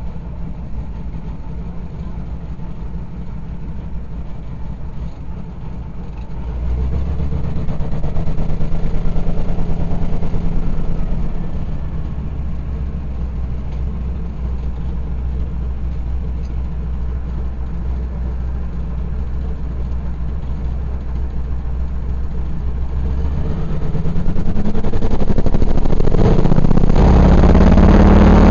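Pratt & Whitney R-1340 nine-cylinder radial engine of an AT-6 Texan, heard from the rear cockpit, running with a steady low drone. It grows louder for a few seconds about a quarter of the way in, and louder and fuller again over the last few seconds as the plane is low over the runway.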